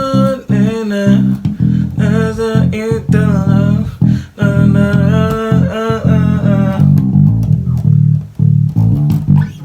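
Bass guitar playing a passage of plucked notes, a fill with chromatic movement added as chords. A higher melodic part runs above it until about seven seconds in, after which the bass goes on alone.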